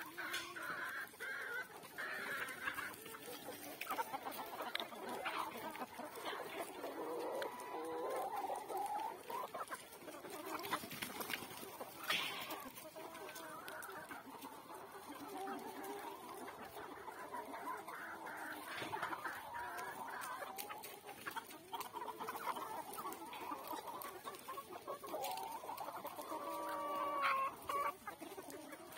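A flock of Kadaknath chickens clucking and calling, many birds overlapping without a break. One louder, drawn-out call stands out near the end.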